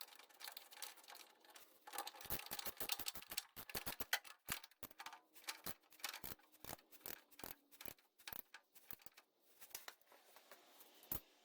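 Hand work on a car: many irregular, quiet clicks and light knocks of tools and parts being handled.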